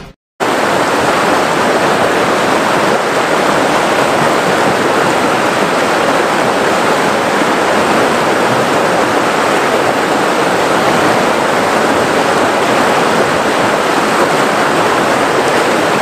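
Rushing river water, a steady loud rush that starts abruptly about half a second in, after a brief silence.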